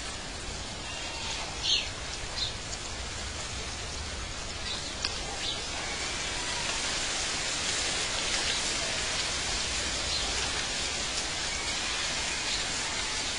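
Steady outdoor nature-ambience hiss with a few short high chirps in the first five seconds, the loudest about two seconds in.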